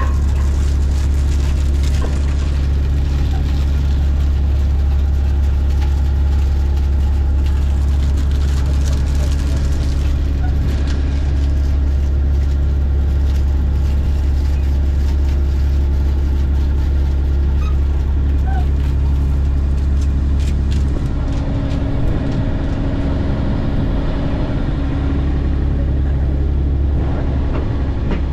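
Steady low drone of a shrimp trawler's diesel engine driving the twin-drum trawl winch as its steel cable pays out to set the nets. The drone roughens and wavers about three-quarters of the way through, then steadies again.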